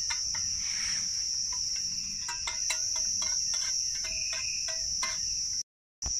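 A steady high chirring of night insects, crickets by their sound, with a spoon clinking and tapping repeatedly against an aluminium mess tin as a hot drink is stirred. The sound cuts out briefly near the end.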